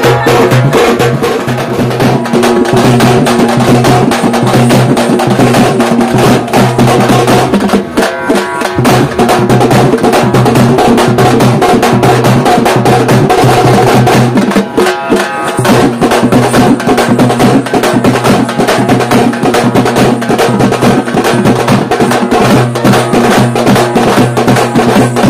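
Dappu frame drums beaten in a fast, dense, continuous rhythm, with short breaks about eight and fifteen seconds in.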